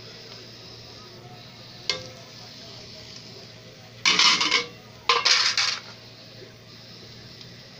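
Chopped vegetables tipped from a bowl onto cooked rice in a pot, the bowl knocking and scraping against the pot. There is a light click about two seconds in, then two short noisy bursts about a second apart just past the middle.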